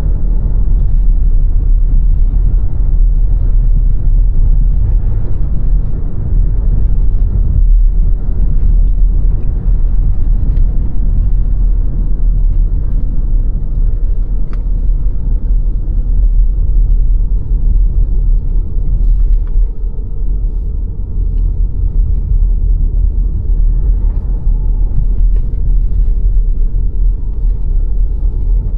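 Car driving along a road: a steady, loud low rumble of tyre and engine noise.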